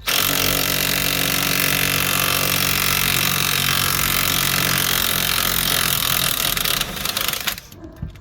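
Impact wrench running steadily for about seven seconds as it spins out a bolt that had already been broken loose with a breaker bar, then stopping.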